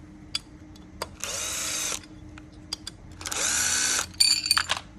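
Cordless power driver running in two short bursts, backing out the screws of a 10-inch hub motor's split rim. Its pitch rises and falls with each trigger pull. Light metallic clinks follow near the end.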